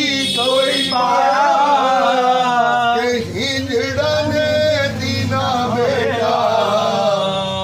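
A man singing a devotional song (bhajan) with long, wavering held notes, over musical accompaniment.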